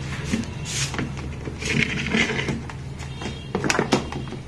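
Plastic casing of a portable TV being handled as its top panel is lifted open: scattered clicks and knocks, a scraping rustle about two seconds in, and a cluster of sharp clicks near the end, over a steady low hum.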